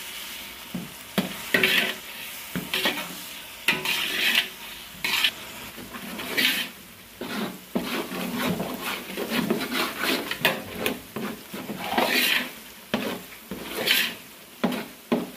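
A metal spoon stirring and scraping garlic-ginger paste and browned onions as they fry in a large aluminium pot: a steady sizzle broken by irregular scrape strokes, roughly one a second. This is the frying (bhuna) of the masala base.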